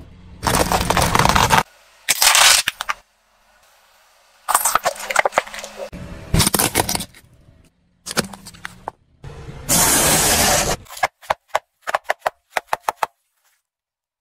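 Car tyre rolling over and crushing plastic objects on asphalt: several loud bursts of crunching and cracking plastic, broken by short silences. Near the end comes a quick run of about ten sharp snaps.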